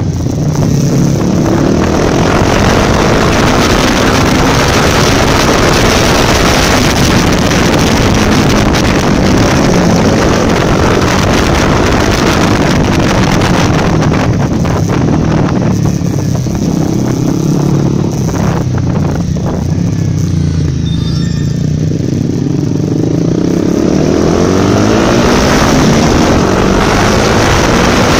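Honda CRF250 Rally's single-cylinder four-stroke engine running under way, its revs rising and falling, with wind buffeting the bike-mounted microphone. The revs and wind drop back in the middle, then the engine picks up again near the end.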